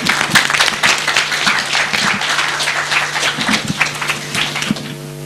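Audience applauding, many hands clapping densely and then thinning out near the end, over a steady low hum.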